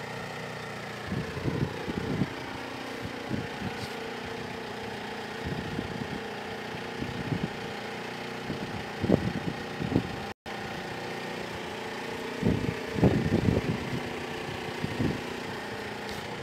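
An engine idling steadily, with irregular low rumbles buffeting the microphone at intervals.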